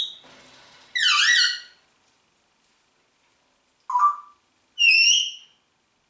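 Congo African grey parrot whistling and calling: four short separate calls, the one about a second in sweeping down and up in pitch, and a clear whistle about five seconds in.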